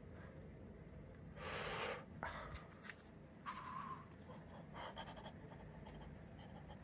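Quiet handling of paper and card packaging: a few short rustling swishes, the loudest about a second and a half in, and small clicks and taps as the inserts and a wooden cut-out are moved.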